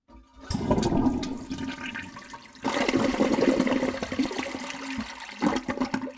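Water rushing and gurgling in two surges, the first about half a second in and the second near the three-second mark, with a steady hum underneath that stops about five seconds in.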